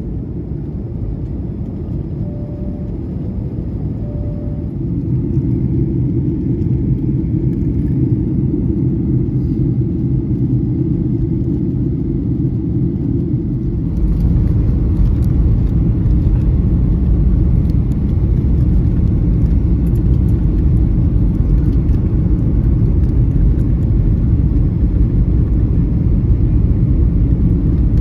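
Steady low rumble inside a Boeing 737-800's passenger cabin with the engines running. It grows louder about five seconds in, then gets a much heavier deep rumble about fourteen seconds in.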